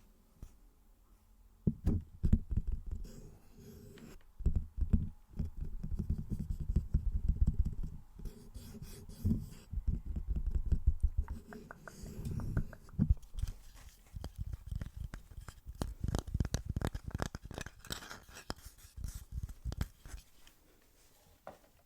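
Close-miked ASMR tapping and scratching on a small wooden jewellery holder, in bouts of quick taps and scrapes with brief pauses between them.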